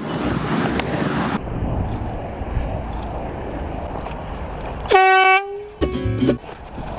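Handheld canned air horn (gas fog horn) blasted once about five seconds in, a loud steady honk of about half a second, with a shorter second burst about a second later. Before it, steady road and wind noise from a moving car.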